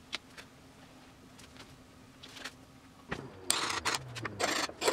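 Claw hammer striking a chisel in a quick run of sharp taps starting about three and a half seconds in, cutting off a protruding wooden levelling wedge under a plywood cabinet base. Before that there are only a few faint handling clicks.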